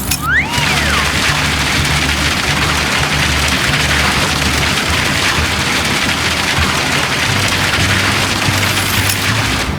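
Steady rushing, rain-like pouring noise of concrete being loaded into a concrete mixer truck's drum, over background music. A short whistle rises and falls near the start.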